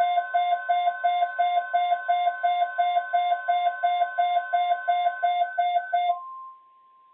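Emergency alert tones on a weather-radio broadcast: a loud electronic chirping alert, the "birds", repeating about three and a half times a second over a steady warning tone near 1 kHz. The chirping stops about six seconds in, leaving the steady tone alone and much quieter.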